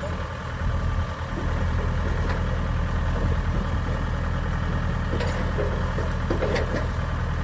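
Kubota DC-60 combine harvester's diesel engine idling steadily, a little louder from about a second and a half in, with a few light clicks over it.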